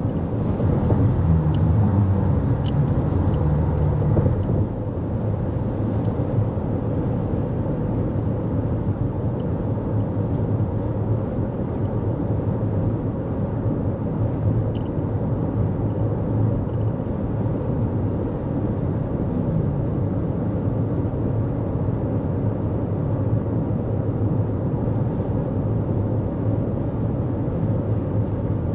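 Steady road noise of a 2024 Toyota Corolla Cross driving at speed: tyre rumble and engine drone. A brighter hiss in the first four seconds drops away, and the car then runs evenly.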